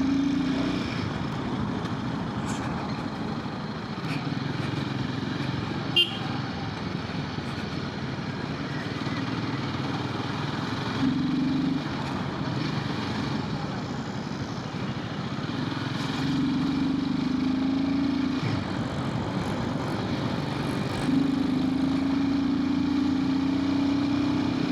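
Royal Enfield Himalayan 450's single-cylinder engine running under way with steady wind and road noise, its note rising and holding in several stretches. A brief sharp sound about six seconds in.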